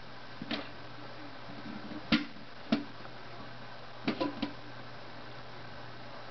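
A handful of sharp plastic clicks and knocks as a cat bites and paws at the lid of a Friskies gravity-fed dry cat-food feeder, trying to pry it off. The loudest comes about two seconds in and a quick cluster comes around four seconds, over a faint steady hum.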